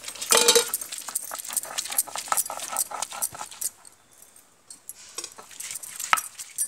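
Stone grinding slab and hand stone (sil-batta) crushing onion and garlic: a run of knocks and scrapes of stone on stone, pausing briefly about four seconds in. A short animal call is heard about half a second in.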